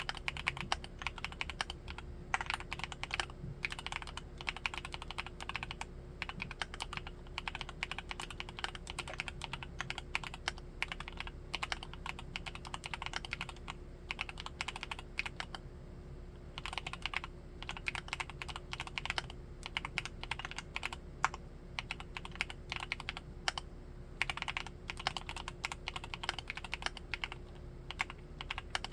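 Fast, continuous typing on a Createkeebs Luminkey75 75% mechanical keyboard with Gateron Baby Raccoon linear switches: a dense run of keystroke clacks, thinning briefly about halfway through.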